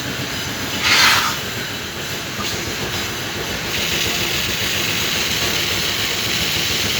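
Septic siphoning truck's vacuum pump running steadily while its suction hose draws sludge from the tank, with a brief louder hiss about a second in.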